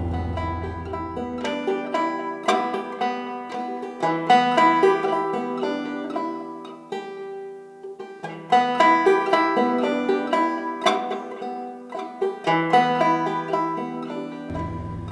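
Background music: an upbeat tune of quickly picked notes on plucked string instruments.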